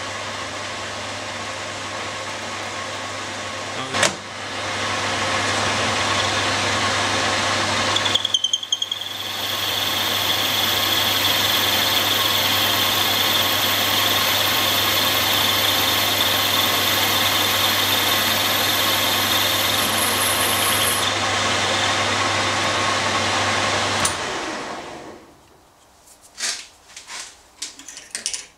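Metal lathe running steadily with a constant hum. About eight seconds in, the sound breaks briefly and a steady high whine joins it. The machine shuts off about three-quarters of the way through, and a few light knocks and clicks follow.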